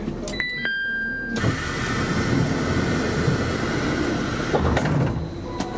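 Electric train standing at a station platform, heard from the cab: a few short, high electronic beeps, then a loud hiss lasting about four seconds that stops suddenly.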